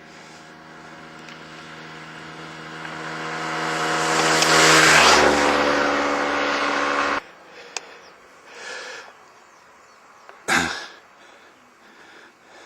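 RC Su-27 model jet's motors whining as it flies past, growing louder and dropping in pitch as it passes, then cutting off abruptly about seven seconds in. A short bump comes a few seconds later.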